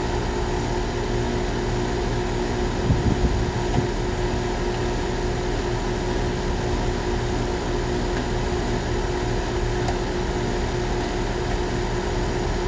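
Heat pump outdoor unit running, a steady hum with fan noise. A few brief knocks of tool handling about 3 seconds in.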